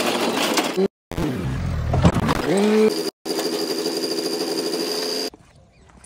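Sonalika 42 DI RX tractor's diesel engine running as it tows a trolley, in short clips joined by abrupt cuts; about two seconds in the engine note rises as it revs. A little after five seconds the engine sound stops abruptly, leaving a few faint light clicks.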